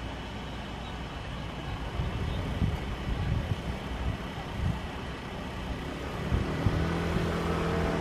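A low, uneven rumble, then about six seconds in a motor vehicle's engine starts to run with a steady hum.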